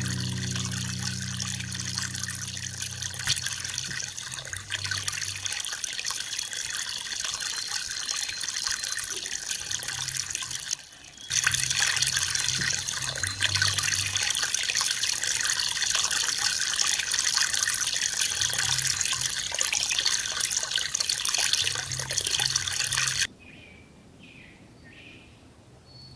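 Snowmelt runoff flowing and trickling in a shallow sheet over leaves and forest floor, a steady rush of water with a brief break about eleven seconds in. Near the end the water sound stops, leaving a quieter background with a few faint bird chirps.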